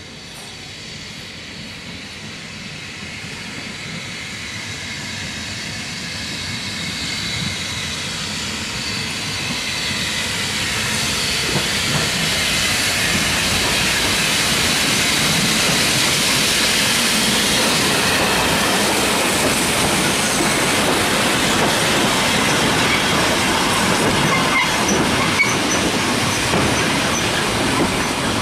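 Industrial saddle-tank steam locomotive hauling its train past at low speed. Its running and wheel-on-rail noise grows steadily louder over the first dozen seconds, then holds steady as it goes by.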